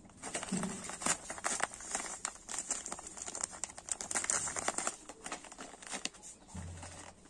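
Plastic snack packets and sachet strips crinkling and rustling as they are handled, in a quick run of crackles.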